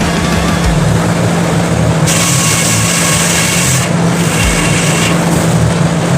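Sawmill engine running steadily under load while the saw cuts through a hardwood log. A bright hiss comes in about two seconds in, drops out near four seconds, and returns about a second later.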